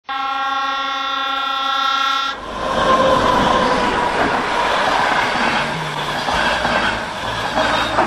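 Diesel locomotive horn sounding a steady chord for about two seconds and cutting off abruptly. Then the loud, even rush and rail noise of a passenger train passing close by.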